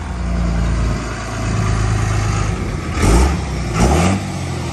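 Heavy tow truck's engine running as it pulls out under power, revving up briefly twice about three and four seconds in.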